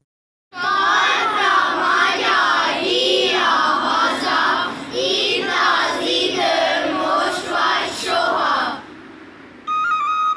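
A group of children singing together in many overlapping voices, then breaking off. A flute starts playing a melody near the end.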